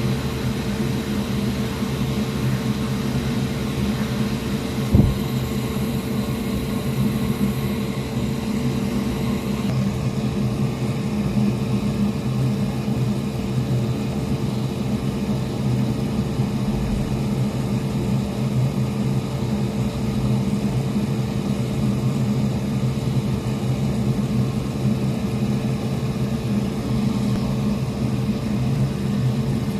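A small motor running with a steady hum, with a single sharp knock about five seconds in.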